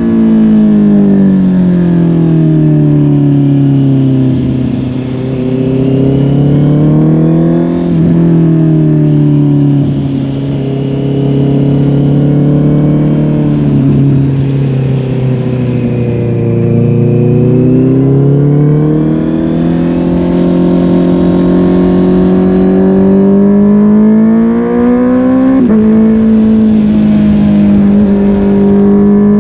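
Honda CB650R's inline-four engine through a MIVV GP Pro Carbon aftermarket exhaust, under way. The engine note falls over the first few seconds, holds low for about ten seconds, then rises steadily as it pulls, with a sudden jump in pitch near the end.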